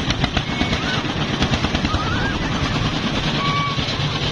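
Kiddie ride train running with a fast, steady rattling clatter, a few short high squeaks or calls faintly over it.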